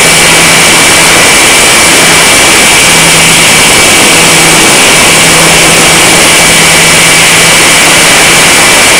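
Loud, steady rush of airflow over the microphone of a camera riding on a flying RC electric glider, with a thin steady high whine and a low hum that drops in and out.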